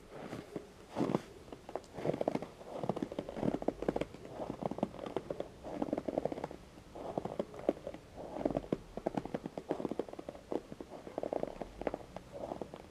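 Footsteps crunching in snow, a short crackly crunch about once a second at a slow walking pace.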